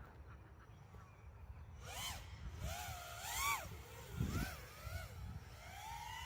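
Faint whine of a 5-inch FPV miniquad's brushless motors and propellers in flight, the pitch swooping up and down in a series of arcs as the throttle is pushed and eased.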